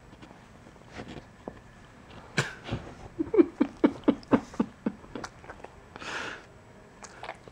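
Boston terrier giving a quick run of about eight short barks close to the microphone, about five a second, then a breathy snort about six seconds in.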